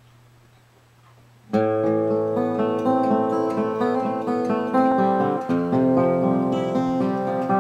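A mid-1940s Gibson LG-2 small-bodied flat-top acoustic guitar being played, starting suddenly about a second and a half in with ringing picked chords and single notes. A faint low hum comes before it.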